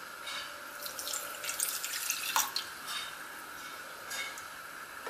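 Milk pouring in a soft trickle from an enamel mug into a stainless steel pot of sugar.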